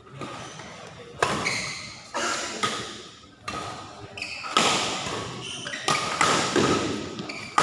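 Badminton rally: rackets striking the shuttlecock in a quick back-and-forth, a sharp hit roughly every half second to second, each one echoing briefly in the large hall.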